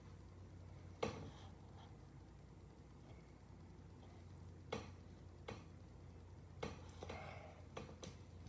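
Faint handling noise from a phone held in the hand: a handful of scattered clicks and knocks, the sharpest about a second in, over a steady low hum.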